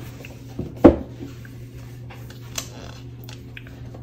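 Rigid cardboard laptop box being handled: a sharp knock about a second in as the lid comes off and is set down, with a lighter knock just before it and a faint tap later, over a low steady hum.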